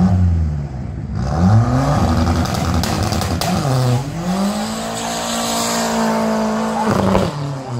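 Fiat Punto race car's engine revved hard at the start line, the revs rising and falling. About four seconds in the revs dip sharply as the car launches, then climb and hold high with the tyres spinning. The pitch drops near the end as the engine comes off the revs.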